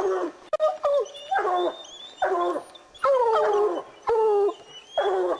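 Lion hounds baying at a mountain lion: a run of about seven loud, drawn-out barks, roughly one a second, each falling in pitch.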